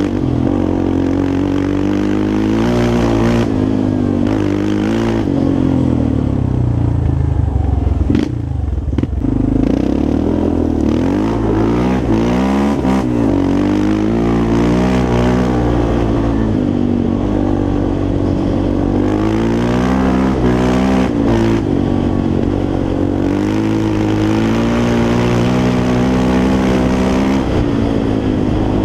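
Yamaha Raptor 350 quad's single-cylinder four-stroke engine under way, its pitch rising and falling repeatedly with throttle and gear changes, with a brief drop about eight seconds in.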